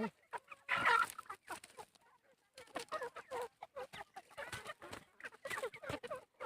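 Kadaknath chickens clucking and squawking. There is one loud squawk about a second in, with further bursts of calls around three seconds and again near the end.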